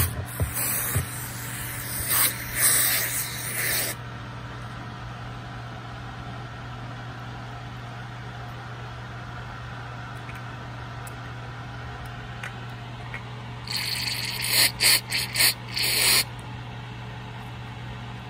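Aerosol carburetor cleaner sprayed through its straw into a carburetor float bowl to clean it out. A hissing spray of about four seconds, then after a long pause a quick run of short spray bursts near the end.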